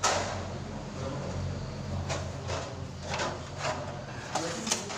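Refrigerator cover panel being handled and fitted back in place: a loud knock at the start, then a series of lighter clicks and scrapes.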